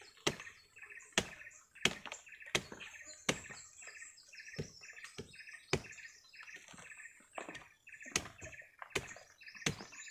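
Steady, repeated blade strikes chopping through a sugar palm's flower stalk, about one and a half a second, with birds chirping behind.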